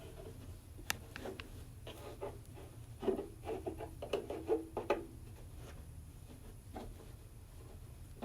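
Rustling and light knocks of hands working: insulation being stuffed back into an electric water heater's element compartment as it is closed up. A cluster of knocks comes about three to five seconds in.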